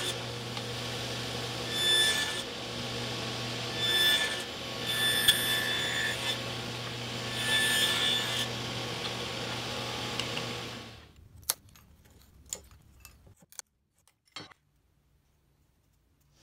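Table saw running and cutting V-grooves into a hard maple block, with several louder spells where the blade bites and a high ringing whine rises. About 11 seconds in the saw sound stops abruptly, followed by a few light clicks and then near silence.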